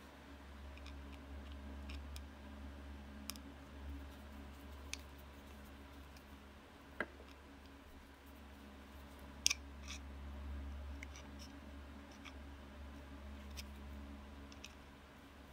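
Scattered small metallic clicks and scrapes of a flat-blade screwdriver working the screw of a hose clamp, with the sharpest click about nine seconds in, over a faint steady low hum.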